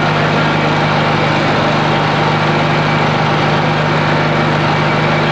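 Gasoline-engine core drill running steadily at constant speed while boring into concrete, a continuous even engine hum.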